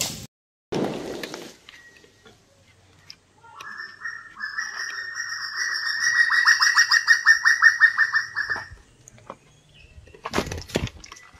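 A firecracker bang at the very start, with noise dying away over the next second. Then a bird's loud trill of rapid repeated notes on one pitch runs for about five seconds, growing louder, and a couple of short knocking noises come near the end.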